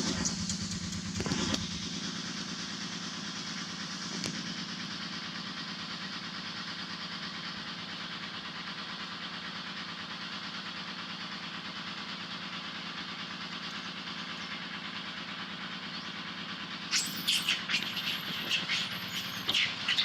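A steady motor drone, like an engine running, for most of the time. About three seconds from the end, a run of short, sharp, high-pitched cries breaks in over it; in this video these are the baby monkey crying.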